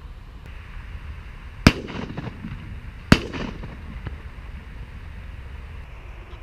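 Two shotgun shots about a second and a half apart, each a sharp crack with a short echoing tail, over a steady outdoor hiss.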